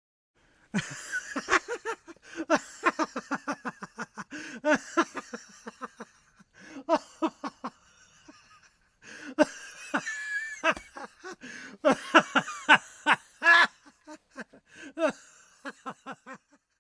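A person laughing in two long bouts of quick, pulsing laughs, with a short pause about eight and a half seconds in.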